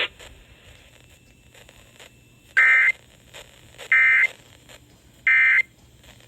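Emergency Alert System end-of-message code: three short bursts of buzzing SAME data tones, about 1.3 seconds apart, marking the end of the alert.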